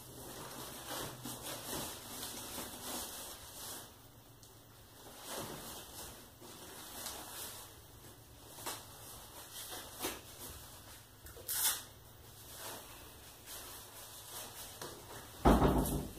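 Fire burning inside a closed glass-fronted wood stove, crackling with irregular sharp pops over a low steady rush, and one louder thump near the end.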